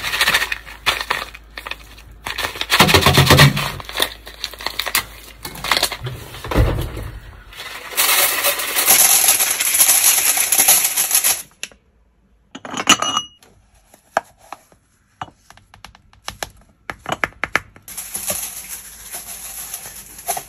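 Laundry granules poured into a top-loading washer's stainless steel drum: a plastic packet handled, then small grains clinking and rattling onto the metal in runs of sharp ticks, with a steady hiss of pouring for a few seconds midway.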